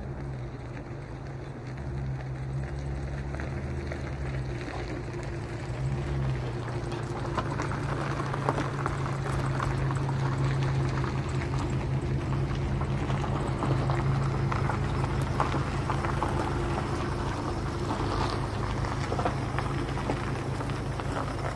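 A motor running steadily, a low hum, with a hissing, crackling noise over it that grows louder about seven seconds in.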